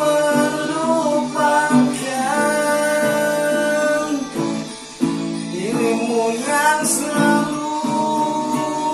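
Two men singing with long held notes over a strummed acoustic guitar.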